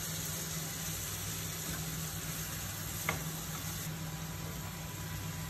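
Fish curry with freshly added coconut milk simmering and sizzling softly in a frying pan on a gas burner, as a steady hiss over a low hum, with one light click about three seconds in.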